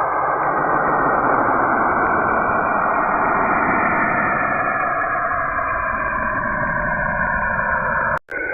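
Saturn's radio emissions made audible: a steady, loud, static-like hiss with faint tones that slowly drift and shift within it. It drops out for a split second near the end, then resumes.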